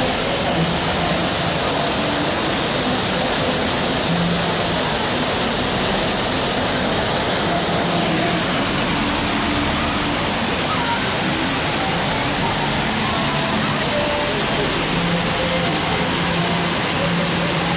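Artificial waterfalls pouring into the churning white water of a raft ride's channel: a steady, loud rush of falling water.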